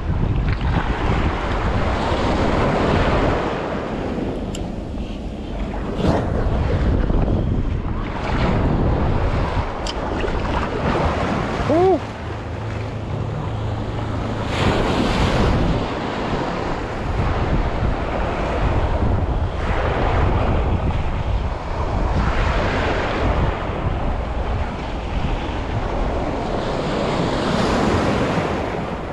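Small waves washing in and breaking at the water's edge, rising and falling every few seconds, with wind buffeting the microphone. A short squeak is heard about halfway through.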